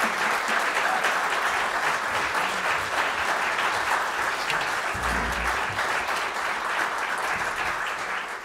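Concert-hall audience applauding with dense, sustained clapping that eases slightly toward the end. There is a brief low thump about five seconds in.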